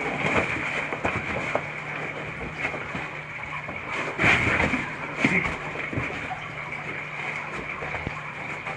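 Cavers crawling over rock: scattered scrapes, shuffles and knocks of suits and a tackle bag against stone, with a louder cluster about four seconds in. Under it runs a steady hiss and low hum.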